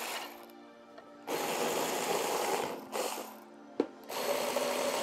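Compact cordless drill-driver with a hex bit backing out bolts on a motorcycle's tail section. It runs in three bursts of about a second each with short pauses between them, and there is a sharp click near the end.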